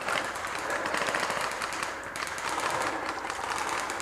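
Airsoft guns firing in rapid full-auto bursts, a fast run of sharp clicking pops that pauses briefly about halfway through.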